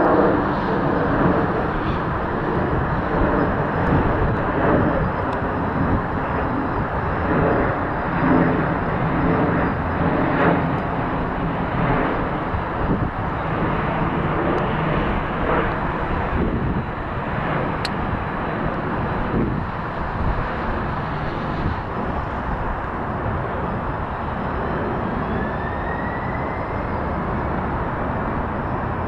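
Boeing 767 freighter's twin jet engines running at low thrust as it taxis, a steady jet rumble with a faint whine that rises slightly near the end.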